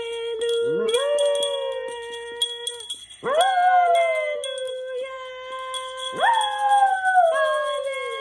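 A Havanese dog howling along to music: three long howls, about one, three and six seconds in, each rising steeply and then sliding slowly down in pitch.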